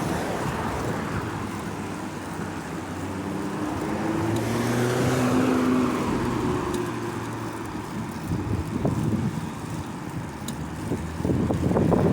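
A motor vehicle passing by, its engine and tyre noise swelling to a peak about halfway through and then fading away. Wind buffets the microphone near the end.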